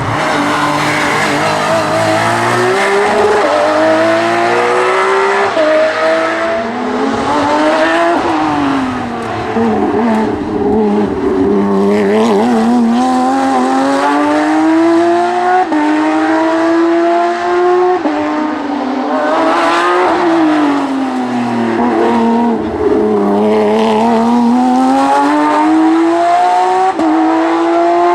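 Hill-climb race car engine at full throttle, its pitch climbing and dropping back at each quick gear change, then sliding down as the driver brakes and downshifts for bends, several times over.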